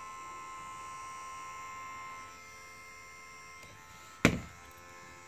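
YIHUA 8858-I hot air gun running and heating up, its small fan motor giving a steady whirring hum with a thin whine that becomes quieter about two seconds in. A single sharp knock comes about four seconds in.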